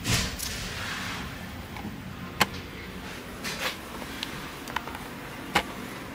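Handling noise: a brief rustle, then a few sharp clicks and knocks, the loudest about two and a half and five and a half seconds in, over a low steady hum.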